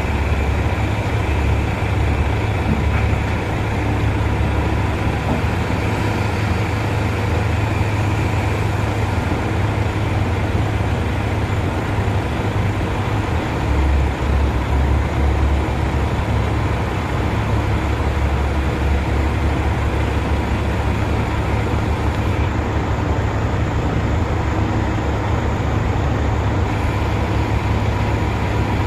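Diesel engine of heavy mining machinery running steadily with a deep, even rumble.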